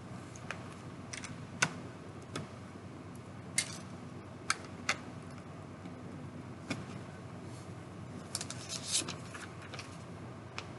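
Plastic Lego bricks clicking and rattling as pieces are handled and pressed together: scattered sharp clicks, with a quick cluster of them late on.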